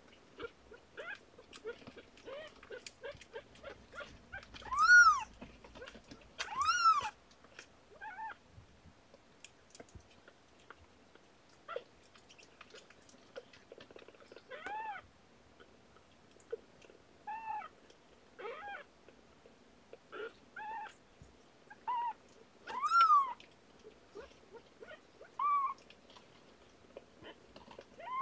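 Newborn kittens under two weeks old mewing: about a dozen short, high-pitched squeaky cries that rise and fall, spaced irregularly, the loudest three about five seconds in, about seven seconds in and near the end. Soft small ticks sound between the cries.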